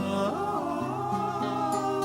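Slow music: a held, wavering melody line over a bass that steps from note to note.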